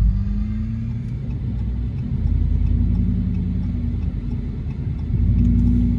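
Pickup truck engine running with a low rumble, getting louder for a moment about five seconds in.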